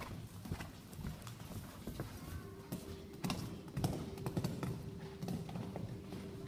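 Hoofbeats of a horse cantering on the sand footing of an indoor arena, a string of dull, irregular thuds.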